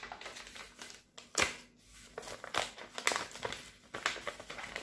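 Paper envelope being handled and unfolded by hand: irregular crinkling and rustling of paper, loudest about a second and a half in.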